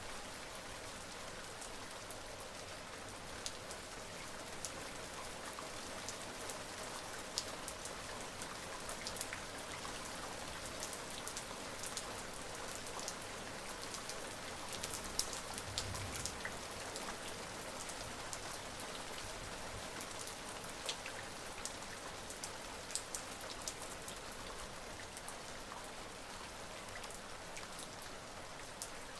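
Steady rain falling, with individual drops hitting a surface close by in frequent sharp ticks over an even hiss.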